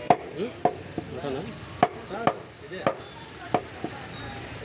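A knife chopping sheep meat into small pieces: about eight sharp chops at an uneven pace, roughly two a second.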